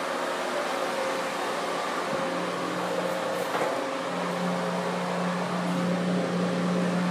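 Steady mechanical hum, with a low tone that grows stronger about four seconds in, and a single light knock about two seconds in.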